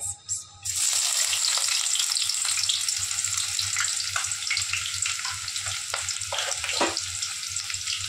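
Chopped onions dropped into hot cooking oil: a loud sizzle starts suddenly about a second in and keeps going, easing slightly, with spattering crackles throughout.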